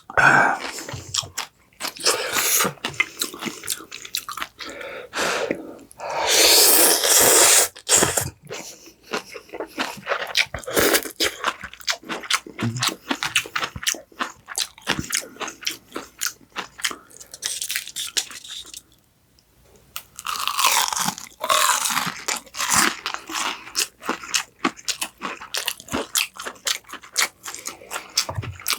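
A person biting and chewing crisp fried food, a dense run of crunches with louder stretches, pausing briefly about two-thirds of the way through.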